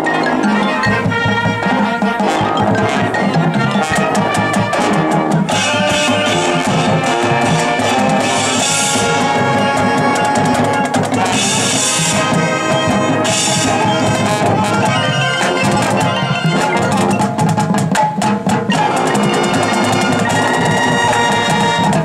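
High school marching band playing at full volume, brass over drums and percussion, with a few bright crashes midway; the music stops abruptly at the very end.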